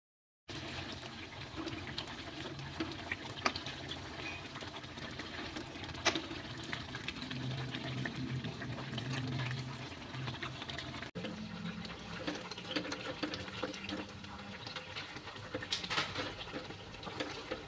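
Thick meat curry bubbling and sputtering in a wok over a gas burner, while a spatula scrapes and clacks against the pan as it is stirred.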